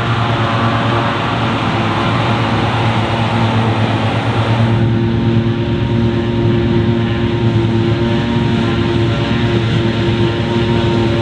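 Heavy diesel farm machinery running steadily under load, with a constant engine drone. About four and a half seconds in, the hissing top of the sound drops away abruptly while the engine note carries on.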